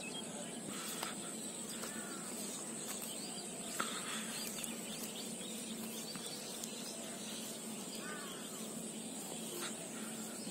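Open-field countryside ambience: a steady high-pitched insect drone, with short bird calls every few seconds and a faint low hum underneath.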